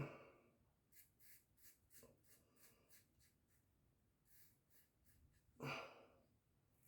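Faint, short scrapes of a RazoRock ECO safety razor with an Astra blade cutting stubble through lather, in quick strokes. A brief breath or sigh comes nearly six seconds in.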